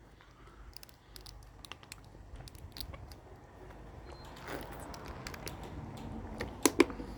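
Scattered light clicks and knocks of scrap metal being handled, over a low rumble, with two sharper knocks near the end.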